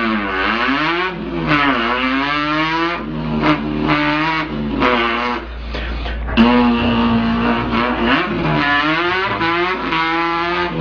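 A man's voice imitating an import car's engine revving, the pitch repeatedly climbing and dropping back, with a few steadier held stretches.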